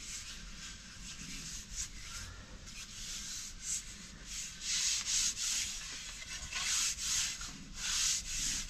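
Bare hand rubbing oil into the wood of a solid cherry canoe paddle, a run of swishing strokes along the shaft and blade, louder from about halfway through.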